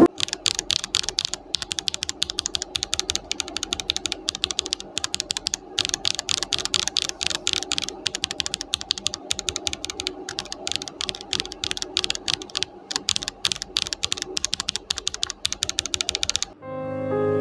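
Fast, continuous typing on an Akko ACR Pro 75 acrylic-case mechanical keyboard fitted with JWK nylon black linear switches and dye-sub PBT keycaps. Near the end the typing stops and soft piano music comes in.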